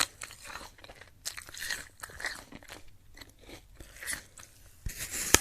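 Crunchy apple being chewed close up: irregular crunches every fraction of a second, with one sharp, loud crunch near the end.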